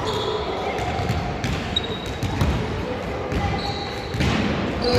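A basketball bouncing on a hardwood court, several separate thuds, with short high sneaker squeaks on the floor and players' voices in the background.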